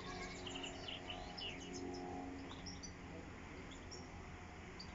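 Small birds chirping: a quick run of short, high chirps in the first two seconds or so, then a few scattered ones, over a low steady background rumble.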